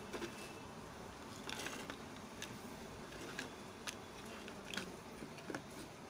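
Faint scattered clicks and taps of hard plastic parts being handled and fitted together: a small speaker's casing and its battery box being reassembled, over a low steady hiss.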